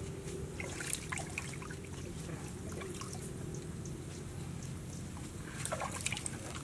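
Faint wet handling sounds and small clicks as snakes are picked up and moved around in a steel wok, with a few brief clusters of crackles about a second in and again near the end, over steady low background noise.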